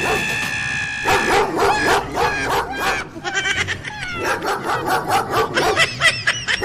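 Recorded dog barking played through a Bluetooth speaker: a rapid string of loud barks, after a held high tone in the first second or so.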